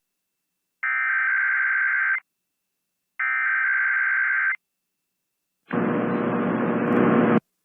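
Emergency Alert System SAME header sent three times: three buzzing, warbling digital data bursts of about a second and a half each, about a second apart, marking the start of an automated Required Weekly Test. The third burst is harsher and noisier than the first two.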